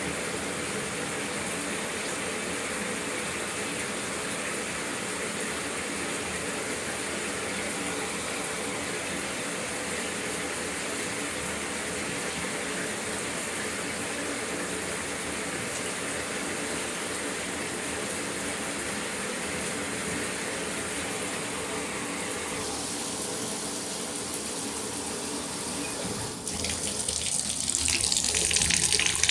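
Bathtub faucet running steadily into the tub. Near the end the sound changes suddenly and gets louder, with a brighter hiss, as the water switches to the shower spray.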